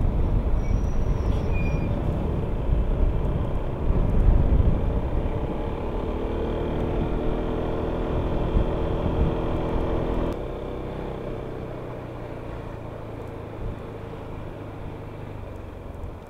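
Yamaha XMAX 300 scooter's single-cylinder engine running on the move, under wind buffeting on the helmet-mounted microphone. A few seconds in, the engine note rises and comes through clearly as the scooter pulls away. Just after midway it drops suddenly to a lower, quieter note as the scooter slows down.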